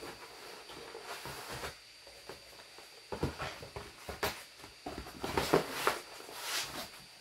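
A cardboard parcel and box being handled and opened: irregular rustling, scraping and crinkling of cardboard and packaging, with a few louder scrapes in the second half.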